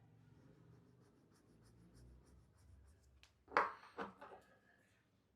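Faint scraping and light clicks as a metal piece is touched and slid against the permanent magnets of an electric scooter hub motor's rotor, testing each magnet's pull to find the weakened ones. A short, sharper sound comes about three and a half seconds in, with two small ones after it.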